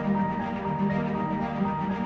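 Instrumental background music, a gentle piece of held melodic notes.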